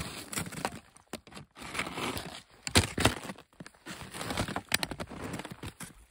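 Ski touring boots stepping into the bindings of skis in chunky snow: snow crunching and scraping under the boots, with several sharp clicks and knocks of boot on binding.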